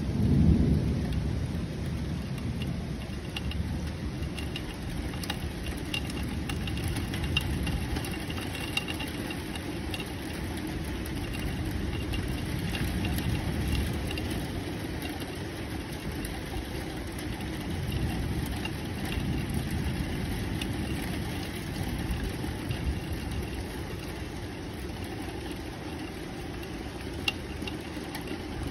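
Low rolling thunder, loudest about half a second in, then rumbling on in slow swells.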